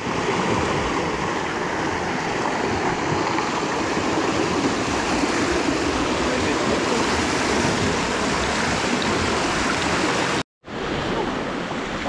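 Rushing river water making a steady, loud noise. It cuts off abruptly about ten and a half seconds in, then returns a little quieter.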